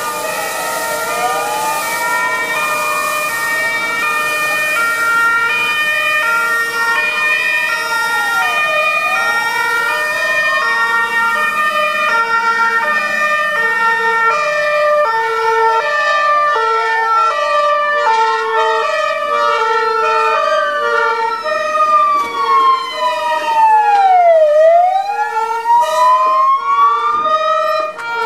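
Emergency vehicle sirens on an arriving fire engine: a slow wail falling and rising about every eight seconds over a fast-switching stepped tone, growing louder, then cutting off suddenly near the end.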